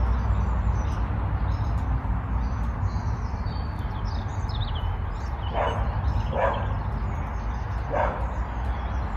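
A dog barks three times in the second half, the barks a second or so apart, with birds chirping shortly before, over a steady low rumble.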